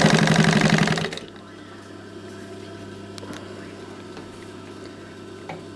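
Singer 31K15 industrial sewing machine stitching at speed with rapid, even strokes, stopping about a second in. Then a steady low hum remains, with a few faint clicks.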